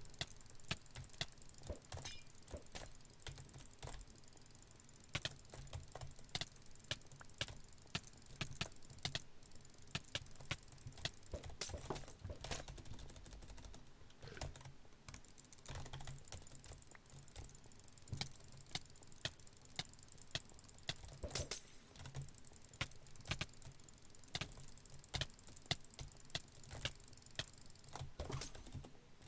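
Typing on a computer keyboard: a run of sharp key clicks at an uneven pace, several a second.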